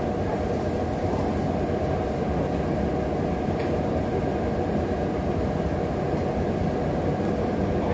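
Steady low droning background noise, even and unchanging, with one faint tick about three and a half seconds in.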